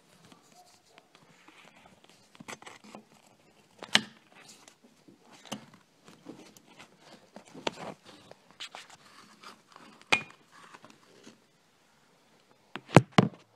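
Scattered clicks, knocks and rustling from hands working on a car's soft convertible top and its frame. The sharpest knocks come about four seconds in, about ten seconds in, and as a quick pair near the end.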